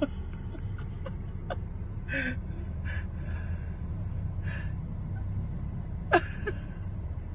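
Steady low rumble of a car running, heard from inside the cabin, with a short breathy gasp-like vocal sound about six seconds in.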